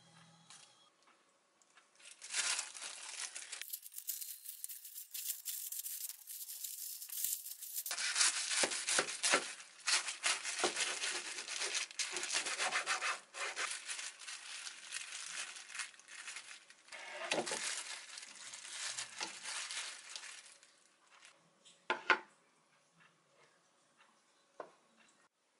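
Plastic cling wrap crinkling and rustling as a sandwich is wrapped tightly in it and then cut in half through the wrap with a knife. A single sharp knock near the end.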